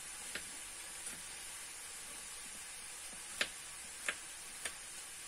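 Faint steady sizzle of pilaf frying in a pan, with a few sharp clicks and taps of a metal garlic press squeezing garlic cloves on a wooden cutting board, mostly in the second half.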